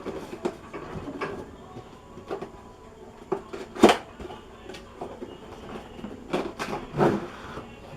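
Laptop box and its packaging being handled: a series of light knocks, taps and rustles, with louder knocks about four seconds in and again around six to seven seconds in.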